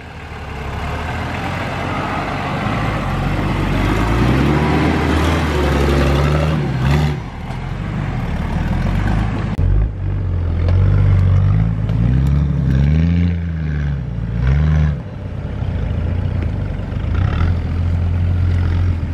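Nissan Patrol 4x4's engine working under load as it climbs a steep muddy hill. It grows louder over the first couple of seconds. The revs rise and fall in two spells, then settle into a steady drone for the last few seconds.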